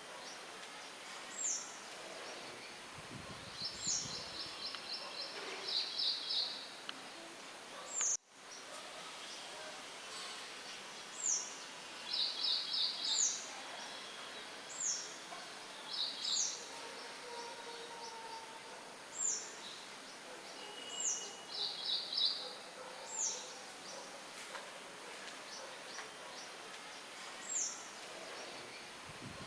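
Birds calling over a steady hiss of wind: short high whistles that slur downward every second or two, and bursts of fast repeated trill notes every few seconds. The whole sound cuts out for an instant about eight seconds in.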